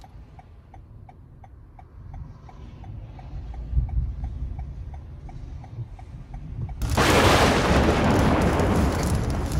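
Low road rumble inside a moving car, with a light ticking about three times a second. About seven seconds in, heavy rain and wind noise on the car suddenly become loud as it drives through a downpour.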